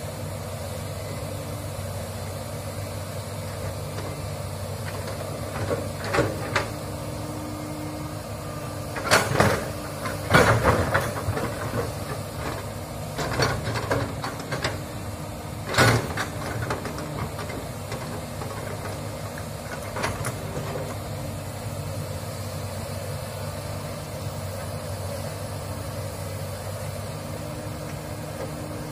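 Komatsu hydraulic excavator's diesel engine running steadily, with a string of sharp knocks and clunks from the bucket digging in wet ground between about six and twenty seconds in, loudest around ten seconds and again about sixteen seconds in.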